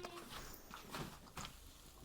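A few faint knocks and taps, with the tail end of a short pitched cry at the very start.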